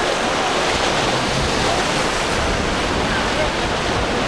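Rough inlet surf breaking and spraying around a large cruiser's hull: a steady rush of water, with wind on the microphone.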